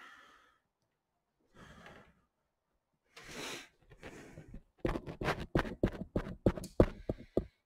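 A breathy exhale, then a quick run of sharp taps or knocks, about six a second, lasting roughly three seconds near the end.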